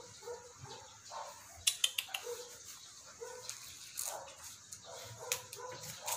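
Small dog whimpering in short, repeated whines while it is held and dosed with liquid dewormer from a syringe; a quick run of sharp clicks about two seconds in.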